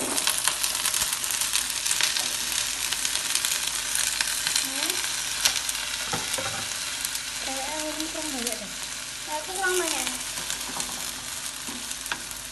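Hot oil sizzling and crackling in a wok as broccoli, carrot and sausage pieces are tipped in, loudest near the start, with a spatula stirring the pan near the end.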